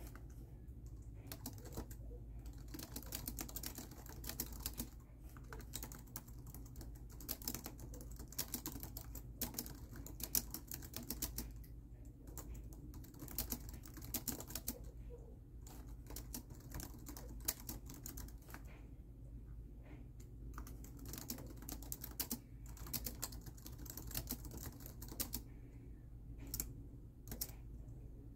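Typing on a laptop keyboard: quick runs of key clicks broken by short pauses, over a steady low hum.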